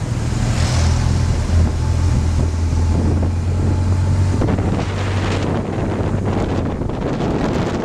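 A vehicle engine runs with a steady low drone under heavy wind buffeting on the microphone while moving along the road. The engine drone fades about four and a half seconds in, leaving mostly wind noise.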